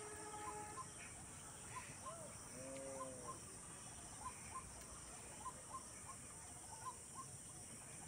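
Faint birdsong: short high chirps, mostly in pairs, repeating every second or so, with one longer call that rises and falls about three seconds in.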